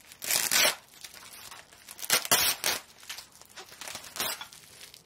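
Green plastic air-cushion packaging film crinkling and crackling as it is handled and pulled out of the parcel, in three loud bursts: about half a second in, a longer one around two seconds in, and a short one near the end.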